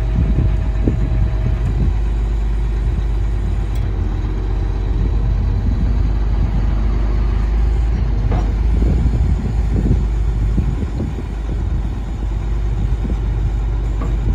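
GMC C7500 service truck's Duramax diesel running steadily to drive the PTO hydraulic pump while the service crane's boom is lowered; a low, even rumble.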